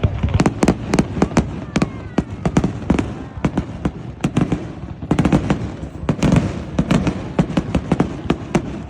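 Fireworks going off: a rapid, irregular run of sharp bangs and crackles, densest about five to seven seconds in.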